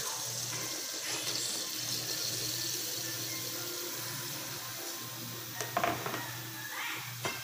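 Ground meat and onions frying with a steady sizzle in a pan as sliced bitter melon is tipped in and turned with a wooden spatula, with a few short knocks of the spatula against the pan near the end. A steady low hum runs underneath.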